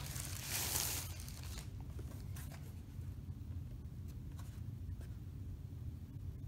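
Thin plastic wrapping rustling as it is slid off a picture frame for about the first second and a half, then a few light handling clicks over a low steady hum.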